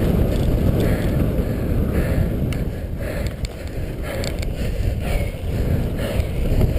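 Wind buffeting the microphone of a camera riding on a cyclocross racer at speed: a steady low rumble, with short rattling clicks from the bike jolting over the course.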